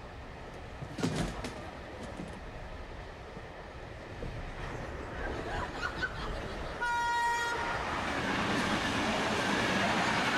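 A train: a steady rumble with a sharp knock about a second in, a short horn blast about seven seconds in, then the running noise of the train grows louder.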